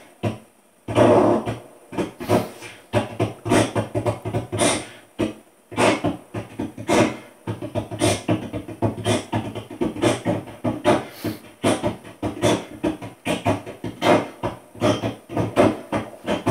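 A man rapping into a handheld microphone over a backing track with a steady low beat, in rapid phrases with short gaps.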